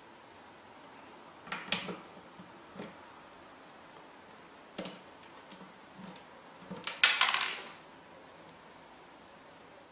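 Light knocks and clicks on a wooden cabinet, then a louder clatter lasting under a second about seven seconds in.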